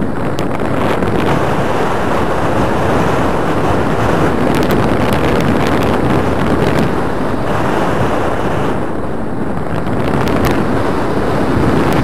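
Loud, steady wind noise from air rushing over the microphone of a pole-held camera during a tandem paraglider flight.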